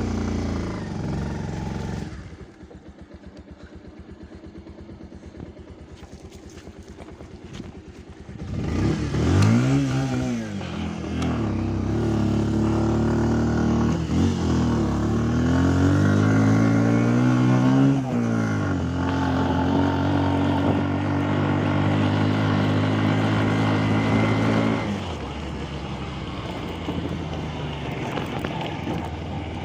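A vehicle engine idling with a low, even pulse, then revving up and down several times from about nine seconds in. It holds a steady higher pitch under load and drops to a lower steady run near the end.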